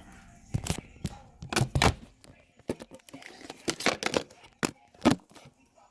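Small tools and phone parts clicking and tapping as they are handled at a repair bench: a run of short, uneven taps, bunched around one to two seconds in and again near the end.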